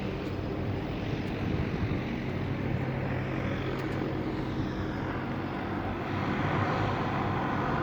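A steady low engine drone with a humming tone, growing somewhat louder about six seconds in.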